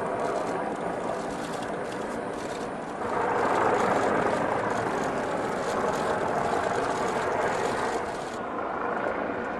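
A vehicle running, swelling louder for about five seconds in the middle, with faint irregular clicks over it.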